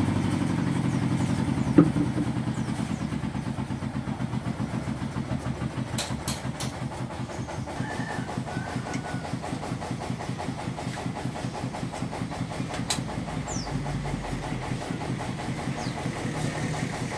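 Motor of a mincer-type peanut grinding machine running steadily with a fast, even pulse. There is a sharp metallic clink about two seconds in and a few lighter clinks later.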